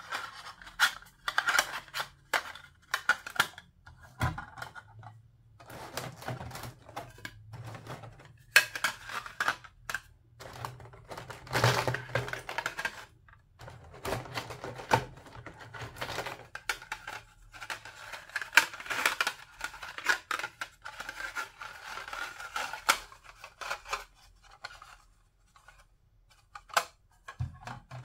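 Hard plastic toy food pieces (play lunch-meat and bread slices) clicking and tapping against each other and against a clear plastic blister tray as they are handled and stacked. The taps come irregularly, in quick clusters with short pauses, and go quieter for a couple of seconds near the end.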